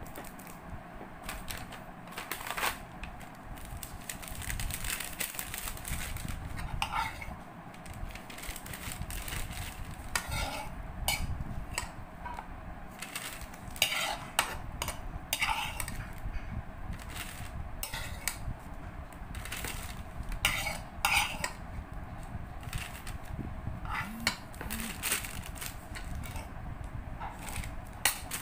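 Kitchen utensils clinking and knocking against pots and dishes, with stirring: irregular sharp clinks that come in clusters, thicker in the second half.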